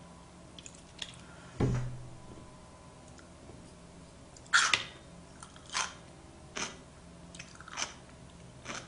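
A person chewing sushi close to the microphone: about five short wet chews roughly a second apart, beginning after four and a half seconds. Earlier, a single dull thump about one and a half seconds in.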